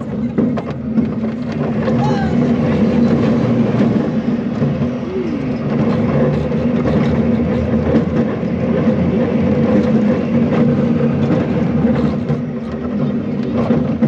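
abc rides family roller coaster train running along its steel track, its wheels giving a steady, loud rolling rumble through the curves.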